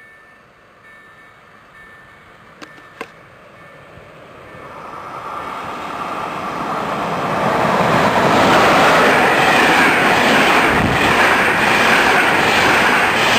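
EP07 electric locomotive hauling an EIC Panorama passenger train approaching and passing at speed: a rushing rail noise that builds from about four seconds in and is loud from about eight seconds on. As the coaches pass, wheels knock over the rail joints in an even clatter. Two sharp clicks come a little before the train builds up.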